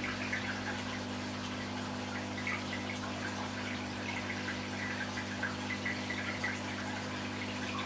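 Aquarium filter or pump running: a steady motor hum with water trickling and bubbling over it.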